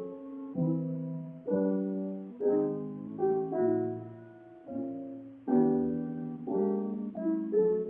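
Slow piano music: chords struck about once a second, each ringing and fading before the next.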